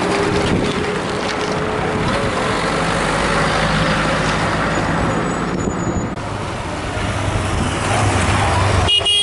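Motor vehicles passing close to a camera at road level: a car's engine and tyre noise, then a motorcycle engine running with a low hum near the end.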